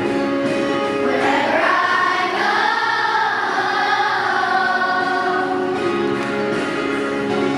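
Children's school choir singing together, holding notes in a slow melody that rises and falls in the middle.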